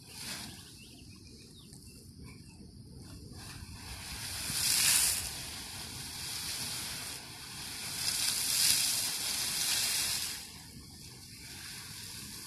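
Geyser erupting: steady hissing and splashing of water and steam that swells in surges, loudest about five seconds in and again from about eight to ten seconds.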